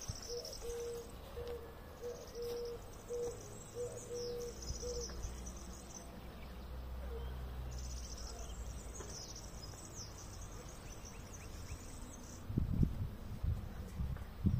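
Outdoor ambience of insects chirping in high, pulsing trills, with a short low note repeated over and over in the first five seconds. Near the end come loud, low rumbling bumps on the microphone.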